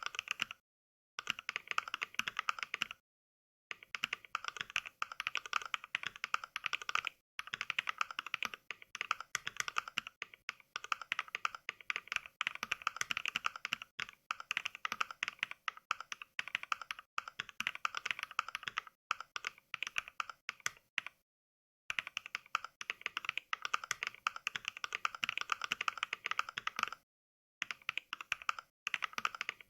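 Fast typing heard as Mechvibes' NK Cream mechanical-keyboard samples rather than a real keyboard: a dense run of crisp key clacks. Brief dead-silent pauses come about a second in, at about three seconds, and twice near the end.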